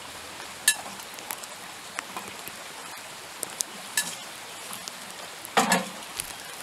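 A metal spoon stirring grated beetroot in a glass bowl: a few light clinks with a short ring, then a louder wet, scraping squelch near the end.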